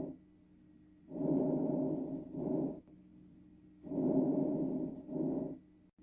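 Lung breath sounds as heard through a stethoscope: two breaths, each a longer rushing phase followed after a brief gap by a shorter one, repeating about every three seconds over a faint steady hum.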